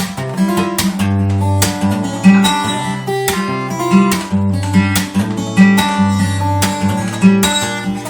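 Acoustic guitar being strummed, sounding chords with low bass notes in an instrumental passage with no singing.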